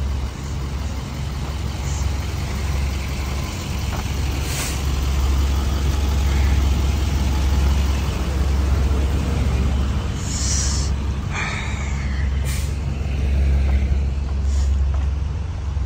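Idling fire apparatus and emergency vehicles, a steady low rumble, with short air-brake hisses about four seconds in and again around ten to twelve seconds.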